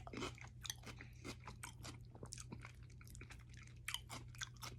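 Close-up chewing of a toasted sub sandwich with many irregular, wet clicks and a few louder crunchy bites about four seconds in.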